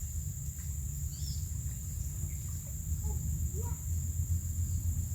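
Outdoor ambience by a pond: a steady high insect drone over a low rumble, with a few faint short bird chirps.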